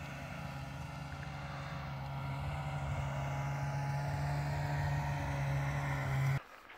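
Snowmobile engine running steadily as the machine approaches and drives past, growing louder as it comes close, then cutting off suddenly near the end.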